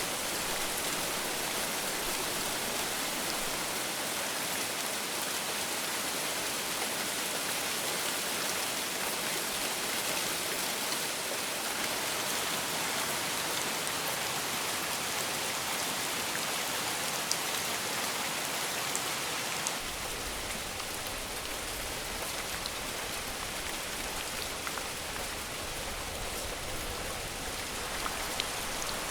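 Rain falling steadily as an even hiss, with a few louder single drops ticking now and then. About two-thirds of the way through, a low rumble joins underneath and stays.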